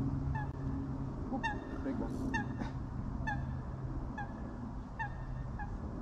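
Geese honking: a run of short, clipped honks, roughly one or two a second at irregular intervals.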